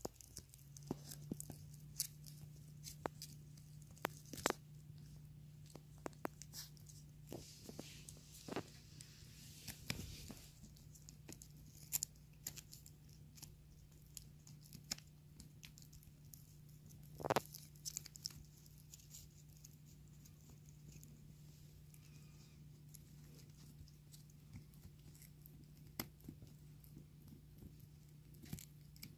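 Toy poodle puppy gnawing and tearing at a dog chew: irregular crunching clicks and scrapes of teeth on the chew, scattered through, as the teething puppy works at it.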